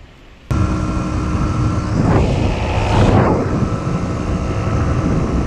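Yamaha DT 125's single-cylinder two-stroke engine running steadily under way, cutting in suddenly about half a second in, with wind rush swelling and fading around the middle. The overheating engine is held at low revs in fifth gear at about 30 km/h.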